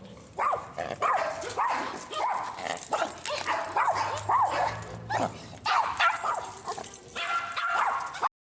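Yorkshire terrier whining and yipping with excitement: a run of short, high, rising-and-falling cries, several a second, that cuts off suddenly near the end.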